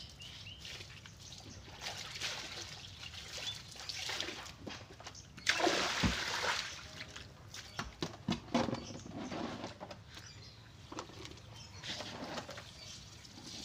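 Water sloshing and splashing as laundry is rinsed by hand in a plastic basin. About five and a half seconds in comes the loudest sound, a rush and splash as a basin of water is tipped out onto concrete. Near the end, water trickles from a hose into a plastic bucket.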